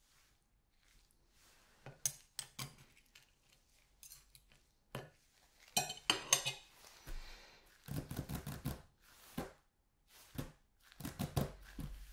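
Metal knife and fork scraping and clinking on a ceramic plate while cutting a baked baguette, in a string of short, sharp knocks, then the cutlery set down on the plate.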